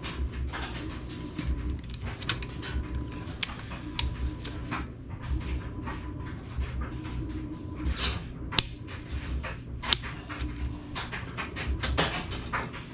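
Click-type torque wrench being set and ratcheted onto a connecting-rod bolt: scattered metallic clicks and taps, with a few sharper clicks about eight to ten seconds in. Low, uneven pulses run underneath.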